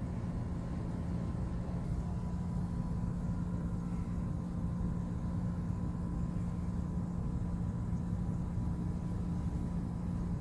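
A vehicle's engine running steadily: an unbroken drone with a strong low hum and a fainter, higher steady tone above it.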